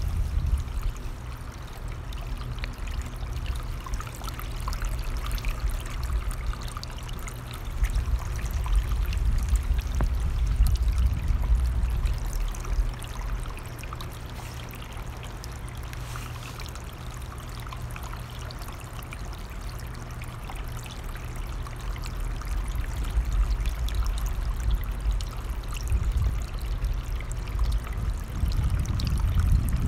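A running mountain stream, with wind rumbling on the microphone in low gusts that swell about a third of the way in and again near the end.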